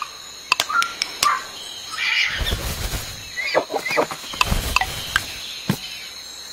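Animal-call sound effects: short squeaks and chirps scattered among sharp clicks and rustling noises.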